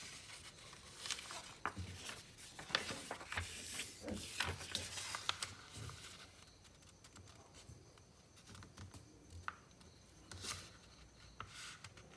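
A sheet of coloured A4 paper crackling and rustling as it is folded by hand, with dense sharp crinkles in the first half. After that come quieter, sparser rubs and clicks as fingers press the fold flat.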